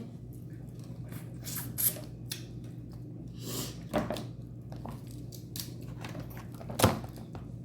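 Seafood boil being eaten by hand close to the microphone: scattered wet smacks, clicks and crackles of shellfish being handled and chewed, with a brief rustle partway through and one sharper crack near the end.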